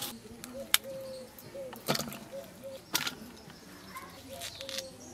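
Cauliflower florets being cut on a boti blade and dropped into an aluminium bowl of water: a few sharp cuts and splashes about a second apart. A dove coos repeatedly in the background.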